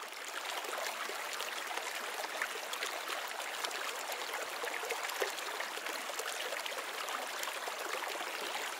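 Steady rushing noise with a fine crackle running through it, like running water.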